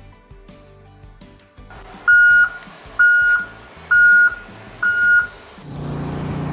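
Four loud electronic beeps, each one high tone about a third of a second long and roughly a second apart, over light background music. Near the end a steady low hum comes in.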